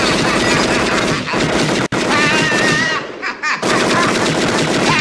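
Tommy gun (Thompson submachine gun) firing one long rapid burst, broken by a split-second pause about two seconds in. A man cries out over the gunfire partway through.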